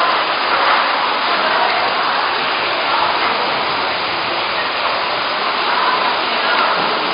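Heavy rain from a sudden summer thunderstorm pouring down onto a paved street, a steady loud hiss.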